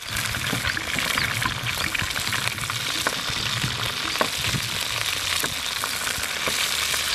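Whole frogs sizzling and crackling in hot oil in a metal wok, with a metal spatula now and then clicking and scraping against the pan as they are stirred.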